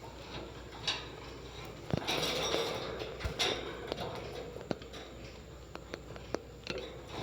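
Pet birds chirping in short, scattered calls, with many small clicks and taps throughout.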